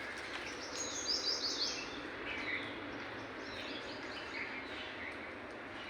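Several birds chirping, with a run of quick high notes about a second in and another around three and a half seconds in, plus scattered lower chirps, over a steady hum of city background noise.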